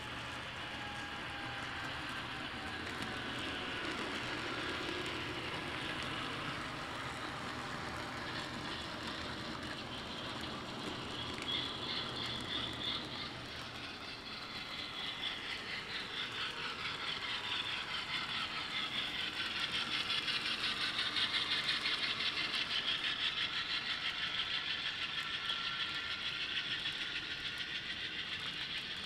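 Model train of tank cars running along the layout track: a steady whirr with slowly gliding tones, and a fine, rapid clicking of wheels on the rails that grows louder from about halfway and is loudest a little past the middle as the cars roll close by.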